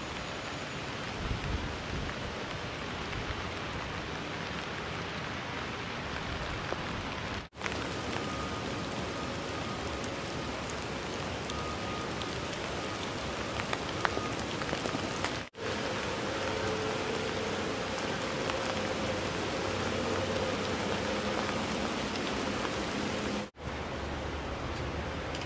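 Steady rain falling on wet ground and puddles, an even hiss that drops out briefly three times at edits. A faint steady hum joins in after the middle.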